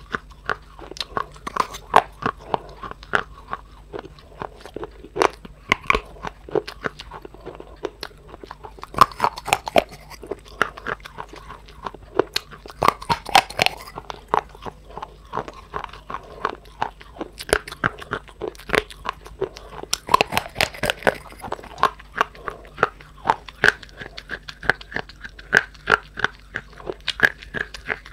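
A person biting and chewing dry clay, a close run of irregular crisp crunches and cracks with a few louder snaps.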